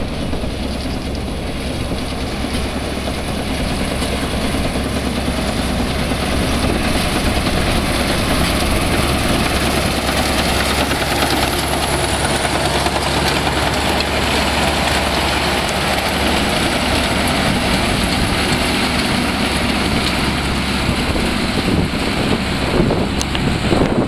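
Case self-propelled windrower running steadily while cutting grain, an engine hum mixed with the rattle of the cutting header, growing louder over the first several seconds as it comes closer.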